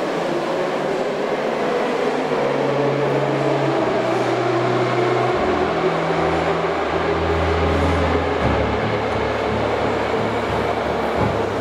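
Moscow Metro train running, a steady rumble with a low hum that shifts in pitch in several steps.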